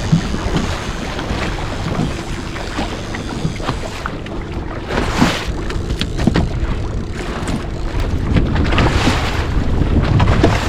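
Fishing boat trolling: a steady motor and water noise with wind buffeting the microphone, and a few short knocks on the boat.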